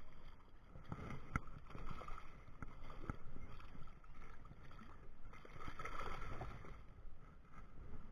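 River water splashing and sloshing as a hooked American shad thrashes at the surface while a wading angler plays it in, with a few sharp clicks or knocks in the first few seconds.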